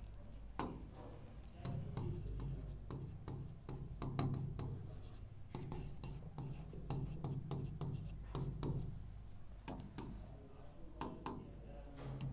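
Stylus writing on an interactive touchscreen board: a string of small taps and ticks as letters are written and on-screen buttons tapped, over a low steady hum.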